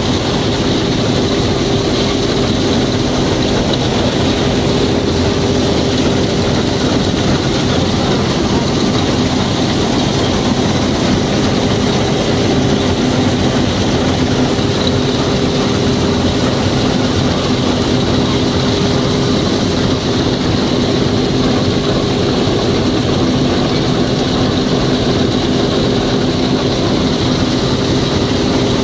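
John Deere 1065 combine harvester running steadily: an unbroken engine and machinery drone with a constant thin high whine over it.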